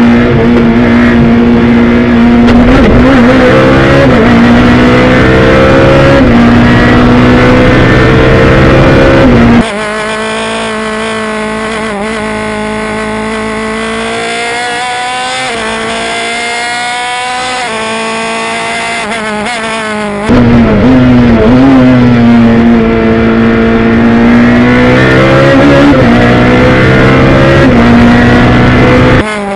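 Racing prototype's engine heard from onboard under hard acceleration, its revs climbing and then dropping again and again as the driver shifts through the gears. The sound becomes quieter about ten seconds in and louder again about twenty seconds in.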